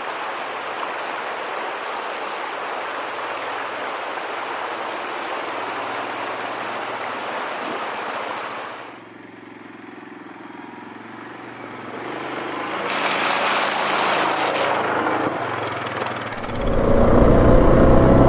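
Steady rushing of water for about nine seconds, dropping away, then rising again briefly. Near the end the rider's 2017 Yamaha Grizzly 700 ATV engine comes in loud and keeps running.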